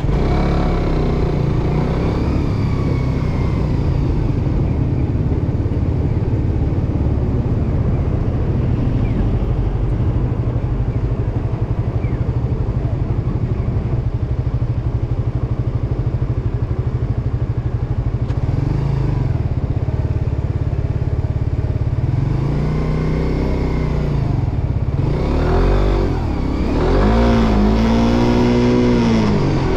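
Suzuki GSX-R150's single-cylinder four-stroke engine running steadily at low revs, then revving up and dropping back several times over the last ten seconds or so as the motorcycle accelerates.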